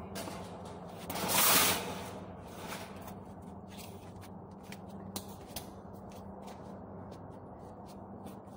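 Metal wire shopping cart being handled and shifted on its side on concrete: one loud rasping rush about a second and a half in, then scattered light clicks and ticks of the wire frame. A steady low hum runs underneath.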